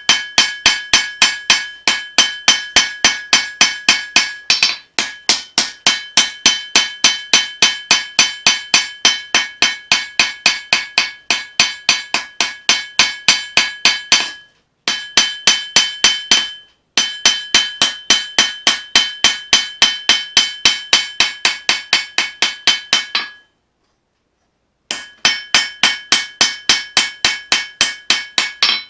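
Hammer blows on an anvil forging a leaf-spring steel knife blade, about three strikes a second, each with a bright metallic ring. The hammering pauses briefly twice midway and stops for about a second and a half near the end before resuming.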